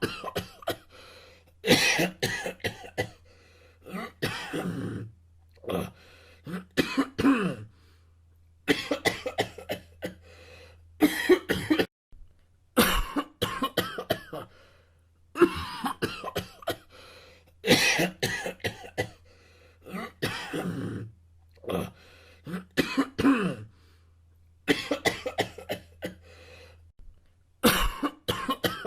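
A person coughing over and over in short fits of a few coughs each, with a brief pause of about a second between fits.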